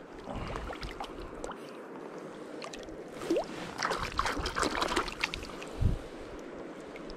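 River water running, with splashes and close clicks that are busiest a few seconds in, and one short rising squeak about three seconds in.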